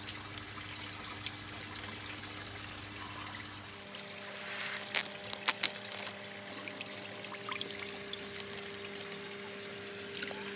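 Water trickling and pouring from a plastic bag into a tub of water as the bag is emptied, with a few sharp clicks about five seconds in.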